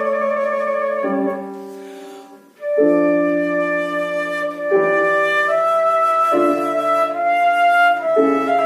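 A flute-type woodwind plays a slow melody of held notes over a piano accompaniment. The phrase ends and dies away about a second in, and the music starts again a second or so later.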